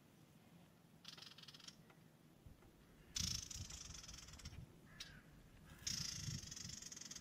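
High, rattling insect buzzing in bursts: a short one about a second in, then a louder one about three seconds in that breaks off and starts again near the end, with a low rumble under the louder bursts.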